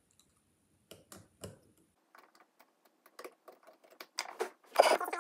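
Light, irregular clicks and taps from hand tools and small parts being handled on a 3D-printed key-copying jig while the key is repositioned, getting busier in the second half. A louder, brief sound comes just before the end.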